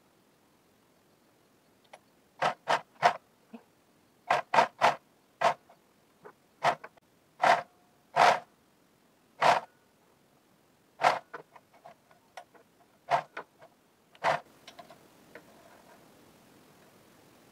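A series of irregular sharp clicks and knocks, about twenty in twelve seconds, from hands working at a home sewing machine.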